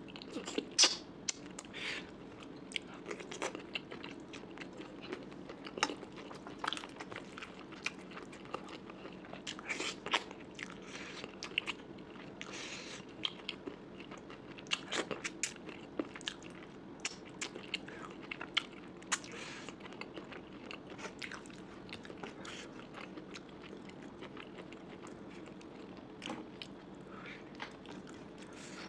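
A person eating close to the microphone: irregular bites, chewing and crunches, with sharp clicks scattered through, from a meal of fish head curry and mutton curry with rice.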